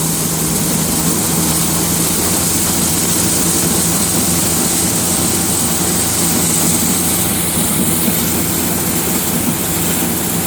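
Forage blower running steadily, blowing chopped earlage up the pipe into a silo: a steady engine drone under a rushing hiss of material through the pipe.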